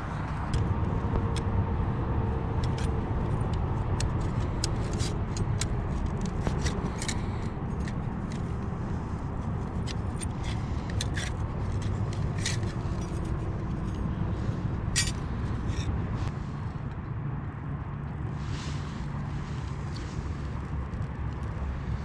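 Steady low drone of highway traffic, with many sharp snaps and crackles of dry twigs being broken and handled to build a small fire, mostly in the first two-thirds.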